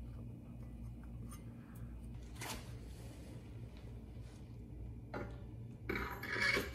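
Generator rotor being handled and slid into the housing onto the engine crankshaft, with light handling scrapes and a short metallic scrape near the end as it goes in, over a low steady hum.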